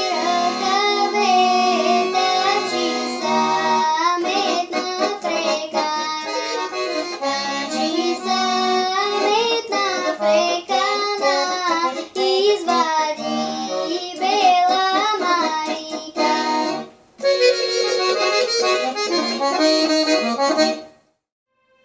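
A young girl sings a Rhodope folk song to accordion accompaniment. About 17 seconds in, the voice stops and the accordion plays a short closing phrase alone. It then cuts off shortly before the end.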